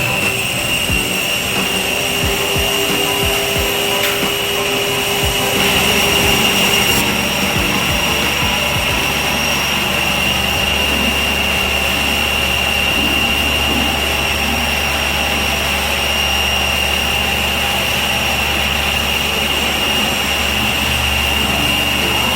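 Electric power tool or machine motor running steadily with a high whine and a noisy hiss, as at a carpentry fit-out.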